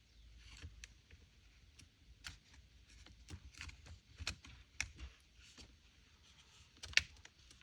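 Faint, scattered clicks and taps of small plastic and metal parts being handled as an Echo CS-355T chainsaw's top handle is reassembled, with a sharper click about seven seconds in.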